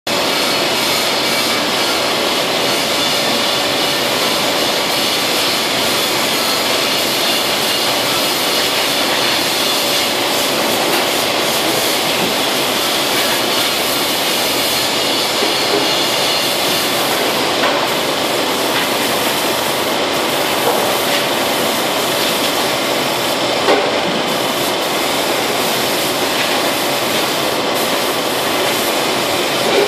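Compressed-air spray gun and paint-line machinery running: a steady loud hiss with a faint steady hum underneath. A few light knocks come in the second half.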